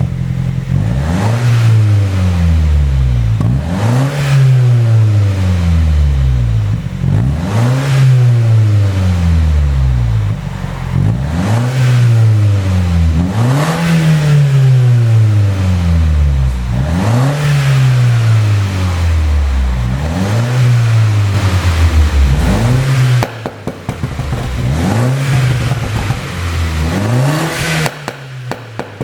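2014 BMW F56 Mini Cooper S turbocharged four-cylinder free-revving over and over, the engine note rising and falling every two to three seconds. Each time the revs drop, the exhaust pops and crackles on overrun, the effect of a pop-and-crackle engine tune.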